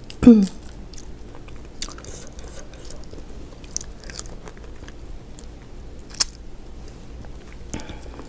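A person chewing shrimp close to the microphone: soft wet chewing with a few scattered crunches and clicks, the sharpest about six seconds in.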